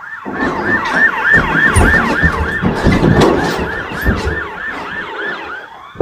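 Emergency vehicle siren in a fast yelp, rising and falling about four times a second, which stops near the end. From about a quarter second in, loud thumps and knocks sound over it.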